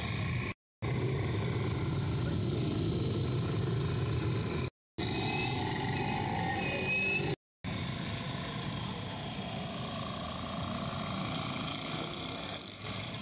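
Street ambience: a steady rumble of road traffic with voices in the background. It drops to silence for a moment three times, at about half a second, near five seconds and just past seven and a half seconds.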